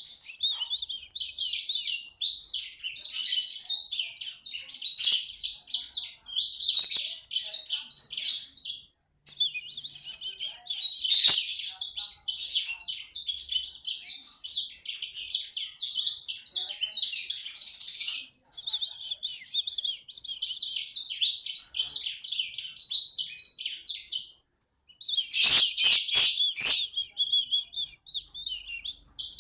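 Pet sanger bird singing a long, rapid, chattering high-pitched song in busy phrases with a few short pauses, the active 'gacor' singing. Near the end comes a louder stretch with a few sharp clicks.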